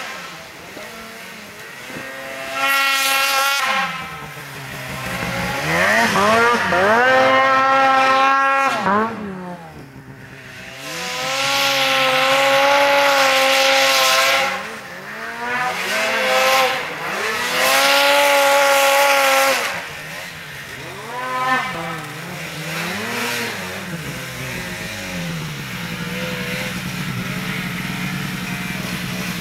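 Two-stroke snowmobile engine revving hard and dropping back about six times as the sled churns through deep powder, then settling to a steady low idle about 24 seconds in.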